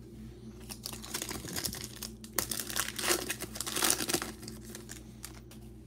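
Shiny foil wrapper of a Panini Phoenix football card pack crinkling as it is torn open and crumpled by hand. The crackle starts about a second in, is loudest in the middle and dies down near the end.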